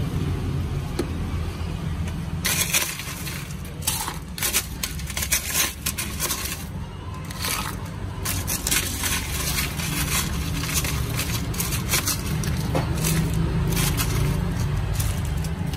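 Ice cubes being scooped with a plastic scoop from an ice bucket and clattering into a plastic cup: a rapid, irregular run of sharp clinks and scrapes starting about two and a half seconds in, over a steady low rumble.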